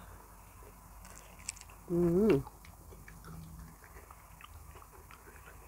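A person chewing fresh raw shrimp in fish sauce, with soft wet mouth clicks throughout. About two seconds in comes a short hummed vocal sound whose pitch bends up and down, the loudest moment.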